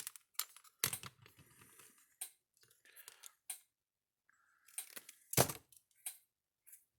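Small clicks, scrapes and knocks of hands working a wire's spade connector off a terminal inside an electric fence charger. A short squeak comes just before the loudest knock, about five seconds in.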